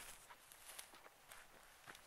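Faint footsteps of a person walking at an even pace, about two steps a second.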